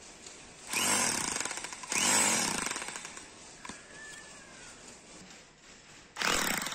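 INGCO 1500 W electric rotary hammer run in short bursts, its chisel bit hammering into hard ground; each burst starts suddenly and fades as the motor winds down. Two bursts come about one and two seconds in, and another near the end with a drill bit on concrete.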